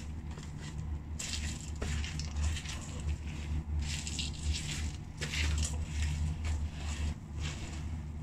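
French fries being crushed and ground underfoot by the rubber lug soles of leather loafers on a hard tiled floor: repeated, irregular crunching as the feet press and twist, over a steady low hum.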